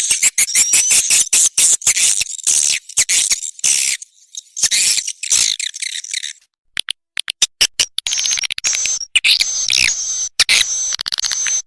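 Edible-nest swiftlet calls played as a swiftlet-house lure sound: dense high-pitched twittering chirps mixed with rapid clicks. The calls break off for about a second and a half just after the middle, then resume as short repeated chirps.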